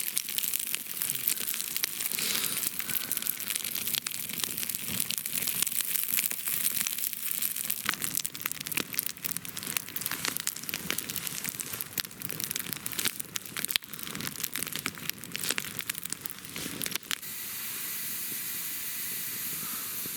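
Campfire with freshly added birch logs crackling, a dense run of irregular sharp snaps; about 17 seconds in the crackle gives way to a steady hiss.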